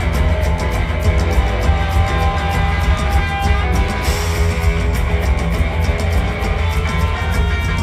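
Blues-rock band playing live through a concert PA: electric guitar over a steady drum beat and bass.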